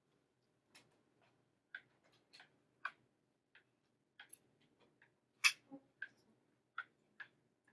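Light, irregular clicks and taps of a stylus touching down on a writing tablet while numbers are handwritten, about a dozen in all; the loudest, sharpest click comes about five and a half seconds in.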